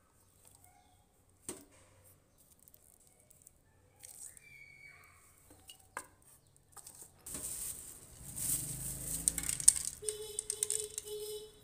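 Handling sounds of a desk lamp and objects on sheets of paper: faint clicks and rustles, then louder rustling noise with sharp knocks from about seven seconds in. A steady low hum joins near the end.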